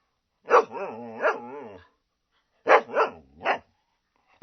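A dog barking. About half a second in, a bark runs into a drawn-out cry that wavers in pitch; about a second later come three quick barks.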